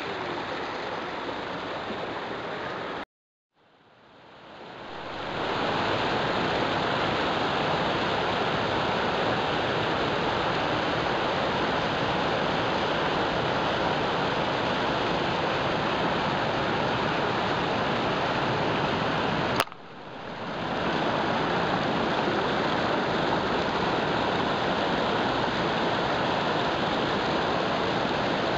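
Mountain stream rushing over rocks in small cascades, a steady rush of white water. The sound cuts out briefly about three seconds in and fades back up, and dips again after a click about two-thirds of the way through.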